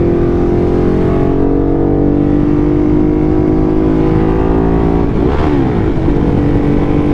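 Motorcycle engine running under way, its pitch slowly falling as the bike eases off. About five seconds in the engine note dips briefly and picks up again.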